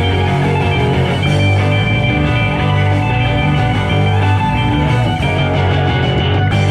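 A live rock band playing an instrumental passage, with electric guitar over a steady bass.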